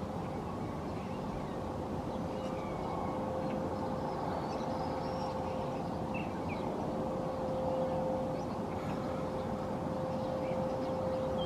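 A steady, single-pitched mid-range hum of unknown origin, the unexplained noise being recorded, holding one note and growing a little stronger after about seven seconds over a background of low rumble. A few faint, brief bird calls come through above it.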